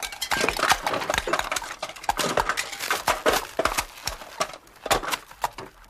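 People eating greedily and messily from torn-open vacuum-packed lunch packs: a dense, irregular run of smacking, crackling clicks that dies away near the end.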